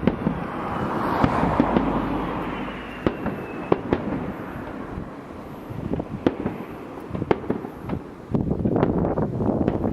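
Fireworks display: aerial shells bursting with rolling booms and many sharp crackling pops, the heaviest booms about a second in and again near the end.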